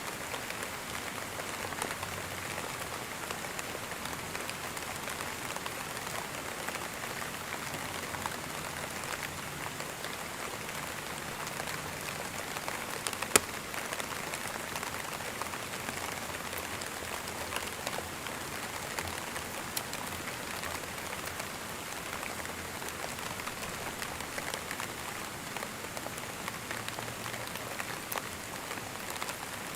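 Steady rain falling on a surface, an even hiss with a patter of individual drops. One sharp, much louder tick of a drop stands out about 13 seconds in.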